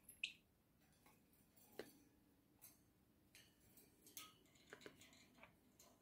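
Faint scattered clicks and taps from a budgerigar pecking and climbing about its cage, beak and feet on the plastic feeder and wire bars, with one short high squeak just after the start as the loudest sound.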